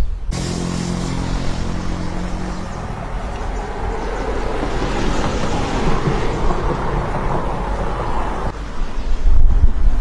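A motor vehicle passing: a steady engine hum for the first couple of seconds, then a rush of road noise that swells and holds before changing to a low rumble near the end.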